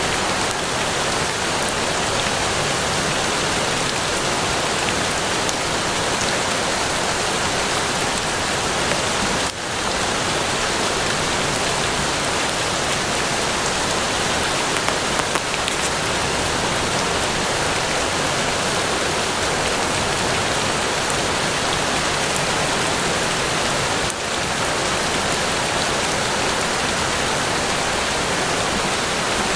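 Steady rain falling, an even hiss of many drops, dipping briefly twice.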